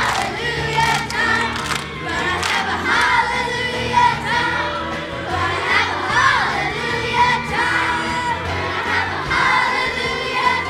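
Children's choir singing together over instrumental music, many young voices at once.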